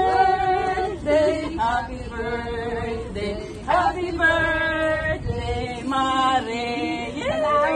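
Several voices singing together in long, held notes with short breaks between them.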